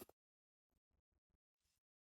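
Near silence: room tone with a few faint soft clicks and a brief faint hiss.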